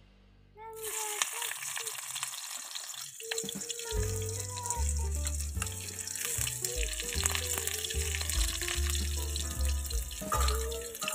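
Sliced onions sizzling in hot oil in a kadai, the sizzle starting suddenly about a second in and running on steadily. Background music plays over it, with a bass line coming in around four seconds.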